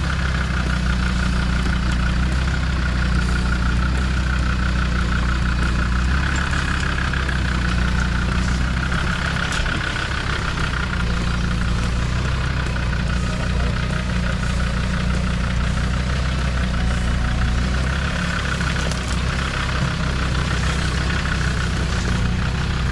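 Four-wheel-drive vehicle's engine running steadily at low revs as the truck drives slowly along an off-road track, with a higher whine over the low drone.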